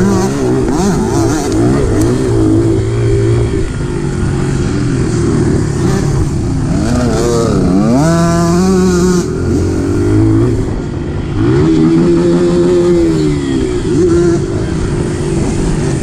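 Honda dirt bike engine running on a dirt trail, close to the microphone, its pitch rising and falling as the throttle is worked, with a quick rev that climbs and drops about eight seconds in.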